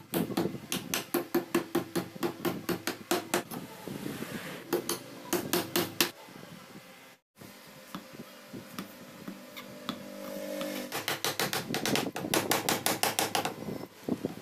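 A claw hammer tapping rapidly at nails in a softwood board, about four or five light blows a second, in two long runs with a quieter pause between them.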